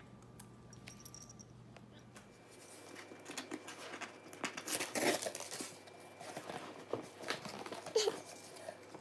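Cardboard box and paper inserts being handled as the box is unpacked: rustling and crinkling with sharp tearing crackles, starting a couple of seconds in and loudest about five and eight seconds in.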